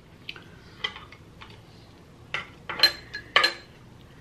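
Wooden chopsticks clicking and knocking against a ceramic serving tray: a few light taps, then two louder ringing clinks about half a second apart near the end.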